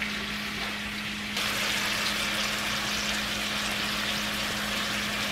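Pork chops and pork tongue frying in corn oil in a skillet: a steady sizzle that gets louder about a second and a half in, over a steady low hum.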